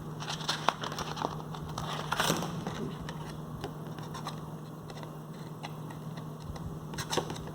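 Small metal clicks and scrapes of a pocket multitool being handled while its folding knife blade is worked open with the fingers, a few louder clicks scattered through and a quick run of them near the end.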